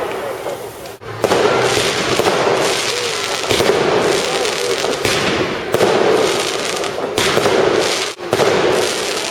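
Fireworks crackling and banging almost without pause, with sharper bangs every second or two.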